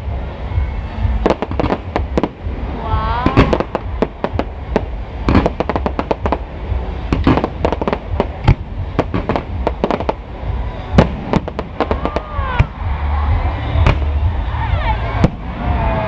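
Fireworks going off in rapid, irregular succession: many sharp bangs and crackles over a low rumble, with a few gliding tones in between.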